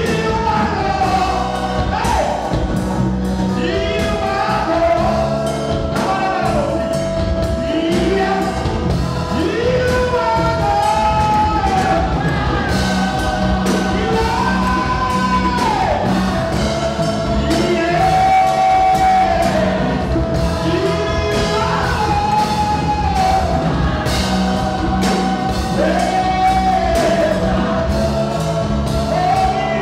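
Live gospel worship song: a lead singer and a choir of backing singers singing over a drum kit and band.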